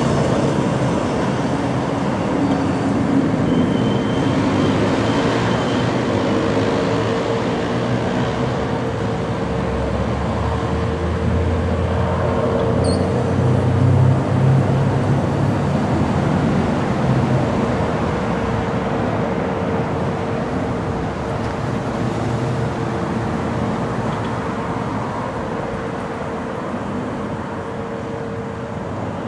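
Steady outdoor vehicle traffic noise, with a vehicle engine growing louder for several seconds near the middle and then easing off.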